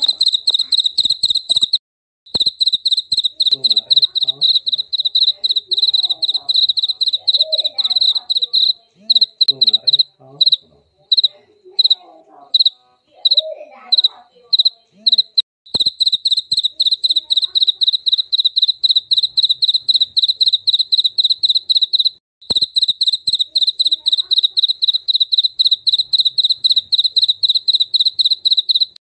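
Jaliteng cricket chirping close up: a loud, fast trill of pulses at one high pitch. It stops briefly about two seconds in, breaks into short separate chirps in the middle, and pauses once more about two-thirds of the way through.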